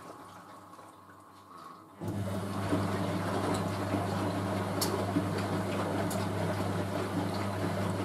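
Hoover A3060 front-loading washing machine on its final rinse: after a brief lull, the drum motor starts with a sudden steady hum about two seconds in, and the drum tumbles a load of bedding through the rinse water with sloshing and a few sharp clicks.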